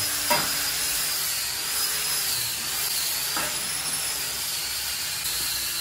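A steel bar clanks once onto the concrete floor as it is laid into a welded frame, with a second, weaker knock about three seconds later. A steady high-pitched whine runs underneath.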